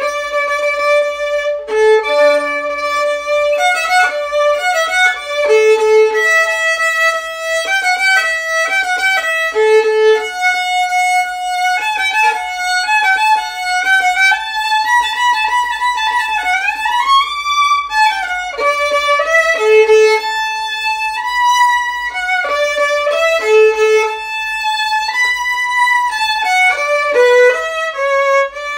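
Background music: a violin playing a melody of held notes, with a sliding rise in pitch about two thirds of the way through.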